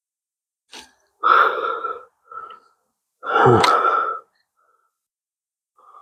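A person's breathy gasps: two long loud ones about two seconds apart, with a short click just before the first and a smaller breath between them.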